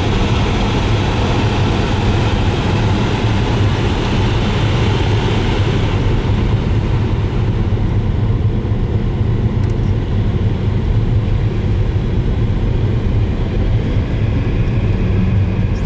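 Steady low rumble of a car driving on a snow-covered road, heard from inside the cabin: engine and tyre noise. A higher hiss over the rumble fades about six seconds in.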